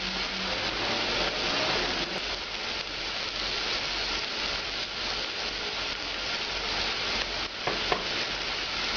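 Chopped vegetables in tomato sauce sizzling steadily in a stainless saucepan as a splash of cognac cooks down until the pan is nearly dry.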